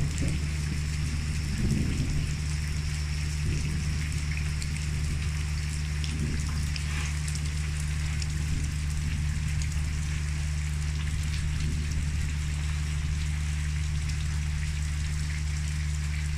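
Steady rain falling on wet ground and puddles, with a constant low rumble underneath.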